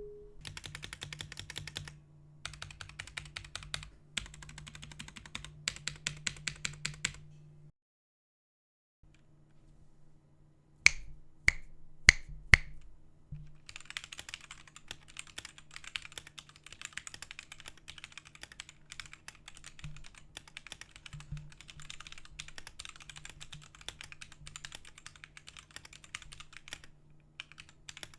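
Fast typing on a Blitzwolf BW-KB1 mechanical keyboard fitted with keycaps from another keyboard. Rapid clacking keystrokes give way to a short silence, then four sharp, loud single clicks about half a second apart, then steady fast typing again. A low steady hum runs underneath.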